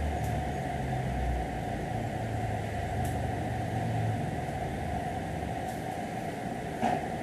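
Steady machine hum running without change, with a short knock near the end.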